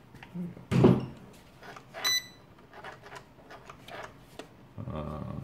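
A toy quadcopter set down on a table with a knock about a second in, then a short electronic beep as it is switched on, followed by a few light clicks of handling.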